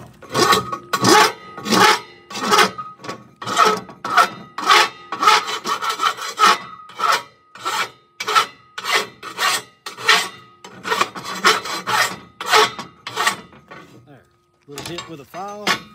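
Hand file rasping back and forth across the torch-cut end of steel square tubing, about two strokes a second, knocking the slag off the cut edge instead of grinding it. A faint ringing note carries through the strokes, which stop shortly before the end.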